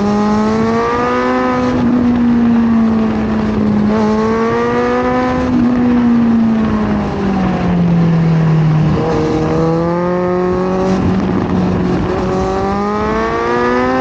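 Kawasaki Z900 inline-four engine under way, its pitch climbing in several runs of acceleration with sudden drops between them. It eases off and falls lower about seven seconds in, then pulls up again.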